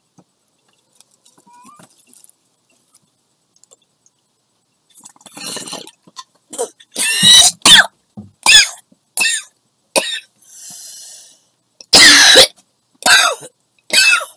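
A woman coughing after inhaling from a glass water pipe (bong): after a quiet start, a fit of about ten loud coughs begins about five seconds in, with a breathy exhale partway through.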